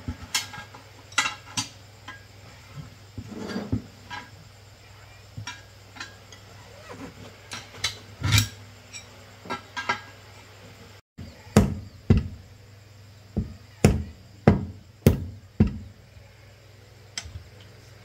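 Steel tire irons clinking and knocking against a steel wheel rim and tire bead as a large tire is levered off the rim. In the second half comes a run of about seven sharp metal knocks, under a second apart.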